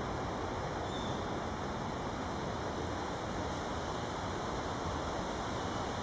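Steady, even rushing background noise with no distinct taps or calls, and a faint short high note about a second in.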